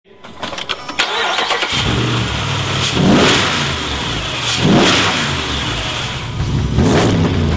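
Mopar 6.4-liter (392) HEMI V8 in a Jeep Wrangler cranking and starting in the first two seconds, then revved three times, each blip rising and falling back.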